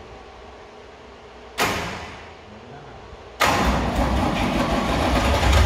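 A sudden loud burst about a second and a half in that fades over about a second, then a big old diesel engine comes on loud near the middle and keeps running with a deep rumble.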